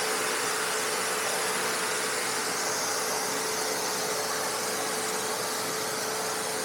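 Whitco pressure washer running and spraying: a steady hiss of water with a steady hum from the pump, as water is run through to flush the hot water out of the heating coils.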